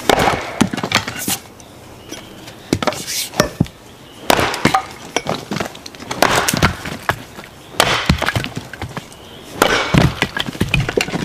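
Vintage single-bit axe chopping firewood on a stump block: repeated sharp blows, roughly every one and a half to two seconds, with the wood cracking and splitting apart.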